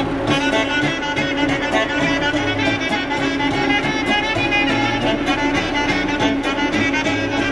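Background instrumental music with a lively melody and a steady beat.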